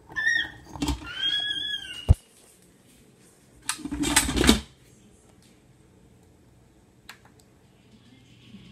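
A cooker's lid being handled. A few short high squeaks start it off, a sharp click comes about two seconds in, and a burst of rattling and scraping follows around four seconds in.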